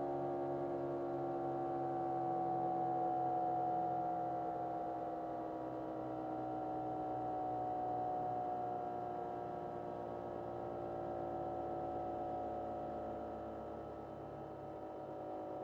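Bell 212 helicopter's twin turbine engines winding down after shut-off, heard from inside the cabin: a whine of several tones slowly falling in pitch while the level gradually eases.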